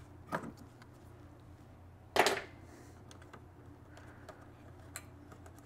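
Small clicks of wire connectors being pulled off the ignition coil of a Stihl BR800 backpack blower, with one louder sharp clack about two seconds in, over a low steady hum.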